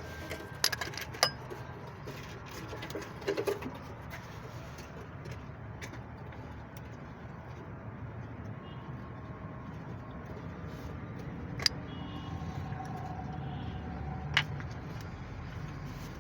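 Metal hand tools clinking a few times, sharp clicks about a second in and twice near the end, over a steady low hum.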